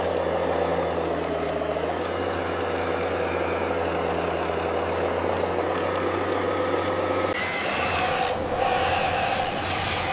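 A machine engine running steadily with a low, even hum. About seven seconds in it changes to a rougher, noisier sound.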